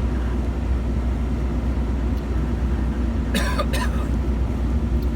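Steady low rumble of a car driving, heard from inside the cabin. A little over three seconds in, a person coughs briefly: two quick bursts close together.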